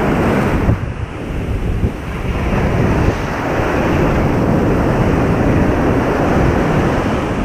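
Shallow surf washing up the sand and swirling around a large fish lying at the water's edge: a steady rushing wash of small breaking waves.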